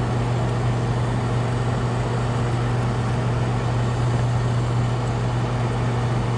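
Paint booth exhaust fan running with a steady, even whir and a low hum.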